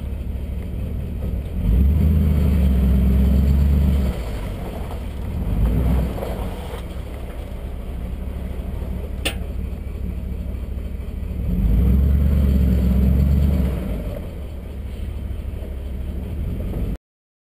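Ford F150's 5.4L V8 on 2.25-inch straight-piped true dual exhaust with no mufflers, idling with a loud, deep exhaust note. It is revved and held twice, about two and twelve seconds in, with a shorter blip around six seconds. A single sharp click comes about nine seconds in.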